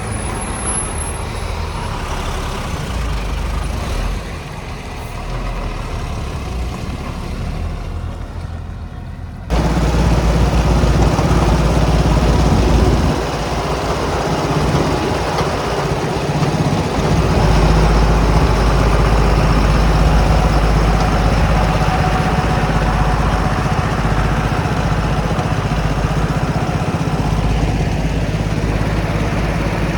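Heavy diesel engine running steadily with a low hum. About a third of the way in it cuts abruptly to a louder stretch of engine sound.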